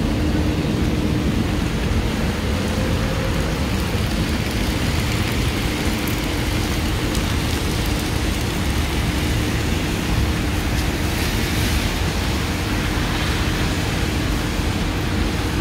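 Heavy rain falling steadily on a city street, mixed with the low rush of traffic on wet roads; the hiss rises briefly about eleven seconds in.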